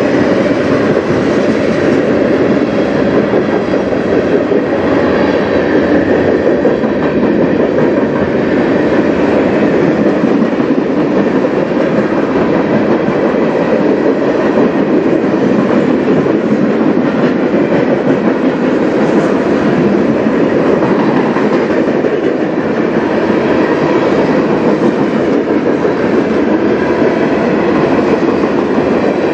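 CN freight train's tank cars and gondolas rolling past close by, a loud, steady noise of steel wheels on the rails that does not let up.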